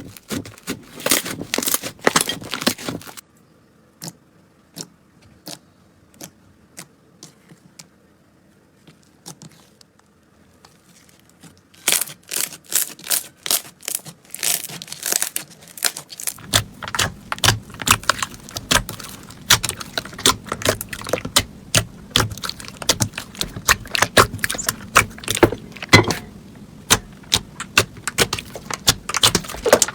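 Slime being worked by hand, giving rapid crackling clicks and pops. About three seconds in it thins to scattered faint clicks, then comes back dense and loud about twelve seconds in.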